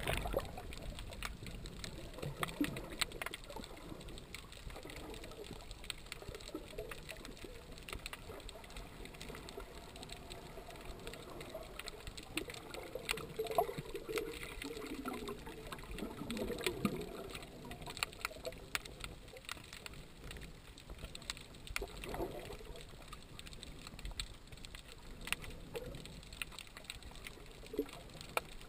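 Underwater sound through a GoPro's waterproof housing: a muffled wash of moving water with scattered sharp clicks and crackles throughout.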